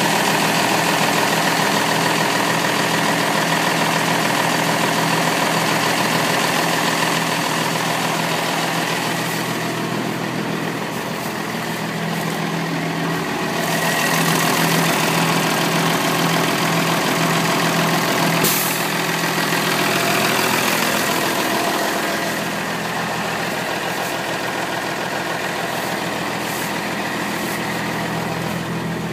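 1991 International 4800 truck engine idling steadily, heard close up, a little over a minute after a cold start.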